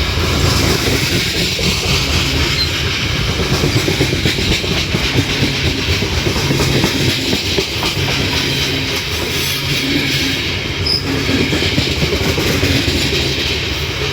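Heavily loaded freight train cars rolling past, their wheels clattering steadily over the rails.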